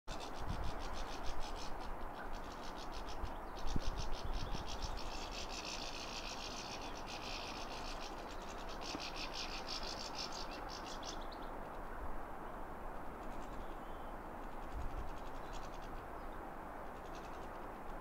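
Goldfinches twittering: a rapid, dense chatter of high notes for about the first eleven seconds, then only faint scattered calls, over a steady background hiss. A few low bumps come near the start.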